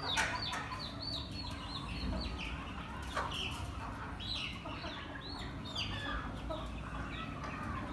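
Young Aseel chickens peeping: many short, high calls falling in pitch, coming in quick succession and often overlapping, with an occasional sharp click.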